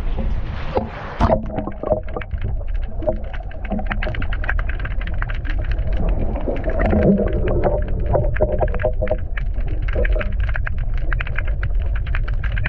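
A camera microphone plunging into seawater about a second in, then muffled underwater sound: a low rumble with dense, irregular crackling clicks.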